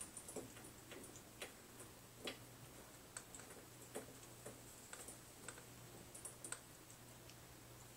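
Faint, irregular light clicks and taps, one or two a second, from a cat rolling and pawing on its back on a wooden parquet floor.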